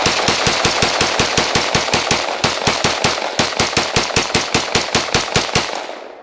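Rock River Arms PDS piston-driven 5.56 rifle fired in rapid semi-automatic succession, several shots a second, emptying a PMag; the shooting stops shortly before the end as the magazine runs dry.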